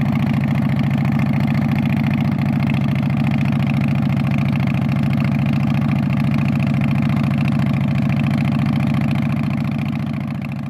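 Custom Harley-Davidson motorcycle's V-twin engine idling steadily through its exhaust, fading out near the end.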